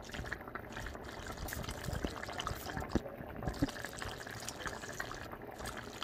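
Pot of spinach soup with chunks of meat bubbling at a boil: steady bubbling with scattered small pops.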